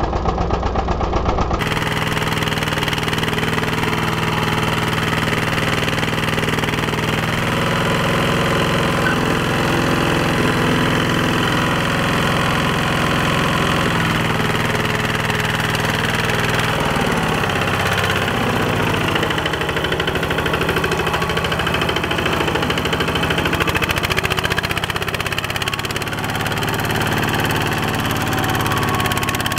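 Single-cylinder engine of a two-wheel walking tractor running steadily under load as it pulls a trailer of sacks through mud. Its note shifts a few times around the middle.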